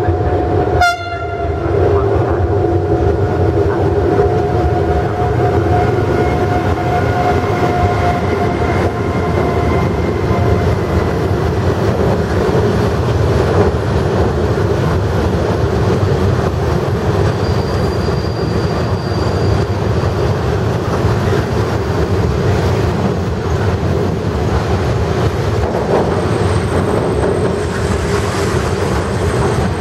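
Long freight train of covered goods wagons rolling past close by: a steady heavy rumble and clatter of wheels on rail. A steady high tone sounds over it at first and fades away after about ten seconds.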